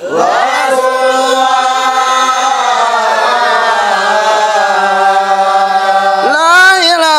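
Men's voices chanting dhikr in unison, led through a microphone, holding one long drawn-out note with a slight waver. About six seconds in, the note breaks and a new phrase rises in pitch.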